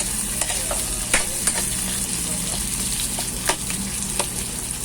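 Food sizzling in oil in a frying pan while being stirred, with a steady hiss and a spatula clicking against the pan several times at irregular intervals.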